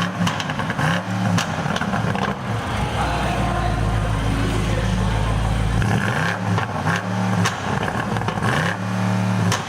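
The 4.4-litre twin-turbo V8 of a 2019 BMW M850i xDrive being revved several times, its pitch climbing and falling back, with a steady idle in between.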